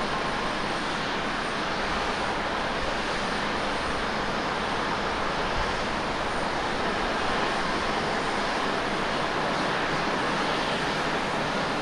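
Jet engine noise of an Airbus A320-214 with CFM56-5B turbofans on landing approach and touchdown: a steady, even rushing sound.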